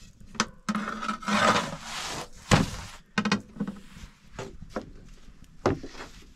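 Thin wooden rolling stick rubbing and knocking against a wooden board as flatbread dough is rolled out. There is a stretch of rubbing about a second in, one sharp knock midway, then a series of lighter taps.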